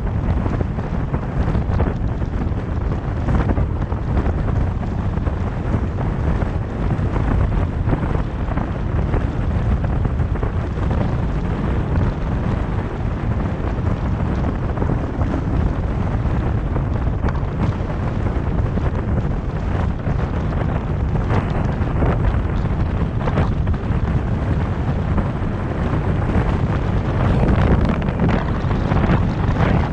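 Wind rushing steadily over the microphone of a moving car, over a low rumble of road noise, with a few brief knocks along the way.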